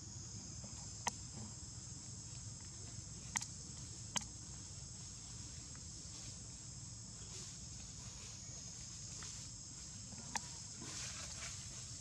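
Steady high-pitched insect chorus in forest, with four sharp clicks: one about a second in, two close together around three and four seconds, and one near ten seconds.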